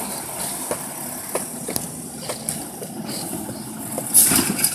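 Side-loader garbage truck's diesel engine running as the truck rolls up to a curbside bin, with a few sharp clicks along the way. About four seconds in, a sudden loud hiss of its air brakes as it stops at the bin.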